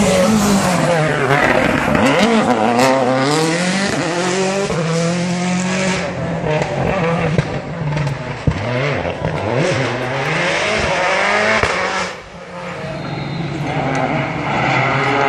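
Rally car engines at full race pace on an asphalt stage, revving hard and rising and falling in pitch through quick gear changes, with sharp exhaust pops. The sound dips briefly about twelve seconds in, then builds again.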